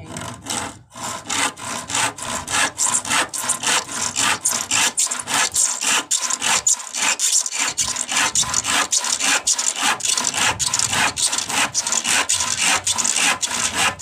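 Handsaw cutting through a wooden board, in steady back-and-forth strokes at about three a second.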